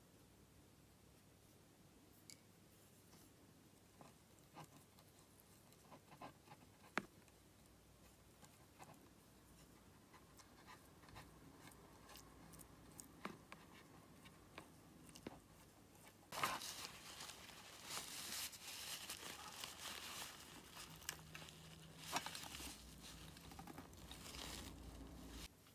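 Faint scattered ticks of a paintbrush in the metal pans of an old tin watercolour box. About two-thirds through, a crumpled paper tissue starts crinkling and rubbing over the pans, louder than the ticks.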